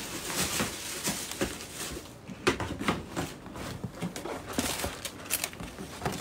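Cardboard gift box and its packaging being handled and opened, an irregular run of small rustles, scrapes and clicks.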